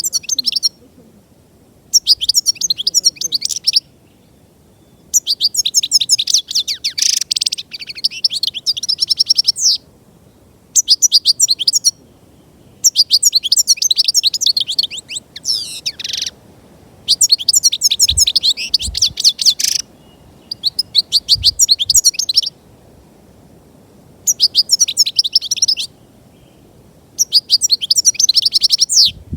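European goldfinch singing: about nine phrases of rapid, high, tinkling twitters, each one to three seconds long, broken by short pauses.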